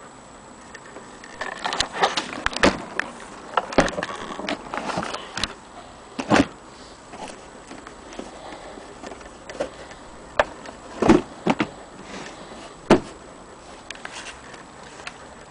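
Handling noise: irregular knocks and clicks as an old accordion and its case are moved about, with no notes sounded.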